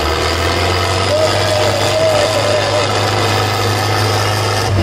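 Diesel tractor engines running flat out under heavy load as two tractors pull against each other, a steady deep drone. The thick black exhaust smoke marks the engines being worked to their limit.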